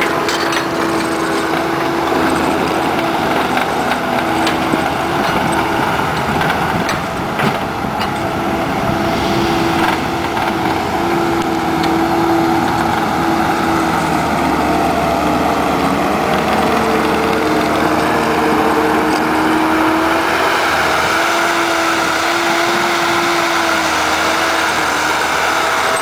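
Case 450CT compact track loader's diesel engine running steadily under load, its hum wavering slightly in pitch, as the machine travels on its rubber tracks and pushes a pile of dirt.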